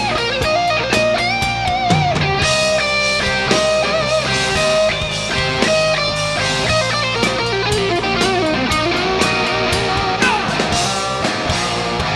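Hard rock band playing live, loud: electric guitars, with a lead line that bends and wavers, over bass and drums.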